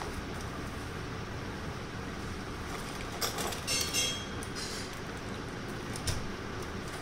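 Packaging rustling in short bursts about three to four seconds in as a small part is taken out of a cardboard parts box, over a steady background hum. A light knock comes near the end.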